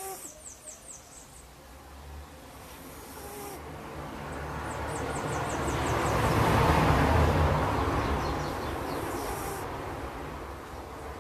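Sleeping domestic cat snoring, a low pulsing rumble with a breathy hiss that swells to its loudest in the middle and then fades.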